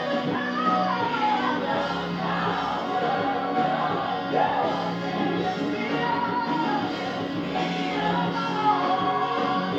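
Praise-and-worship music with a sung melody gliding over held low notes.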